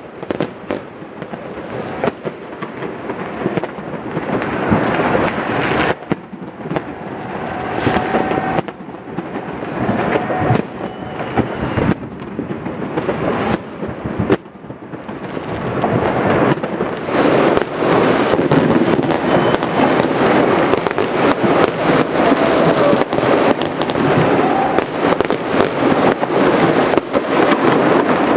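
Fireworks going off in large numbers: a dense run of cracks and bangs that grows louder and thicker about halfway through into a near-continuous barrage.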